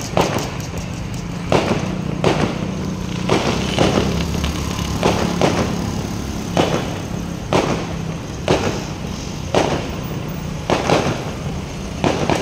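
Aerial fireworks bursting overhead: a string of sharp bangs at an uneven pace, about one a second.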